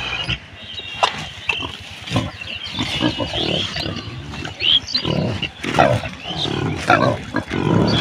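Several pigs grunting repeatedly while rooting and feeding, the grunts coming thicker in the second half. A few sharp clicks and short high chirps are heard over them.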